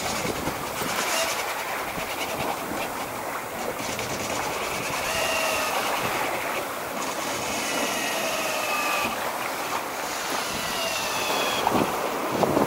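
Pelagic tiller autopilot's electric ram motor whining in several short spells as it pushes and pulls the tiller, each whine sliding slightly down in pitch. A steady rush of wind and water runs underneath.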